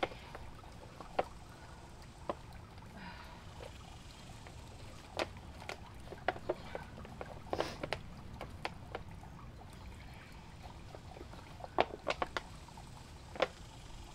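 Irregular sharp snaps, crackles and rustles of a potted hibiscus's root ball being pulled and untangled by hand, the pot handled as the roots come free.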